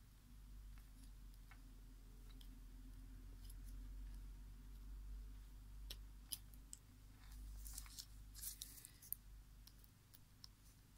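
Faint clicks and scrapes of a small hand tool and fingers working on the plastic housing of a Microsoft LifeCam Cinema webcam, a few sharper clicks in the second half, over a low steady hum.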